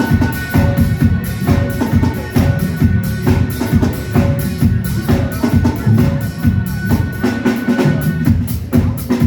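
Instrumental section of a rock song led by a busy drum-kit beat with bass drum and snare. A held high tone over it stops about eight seconds in.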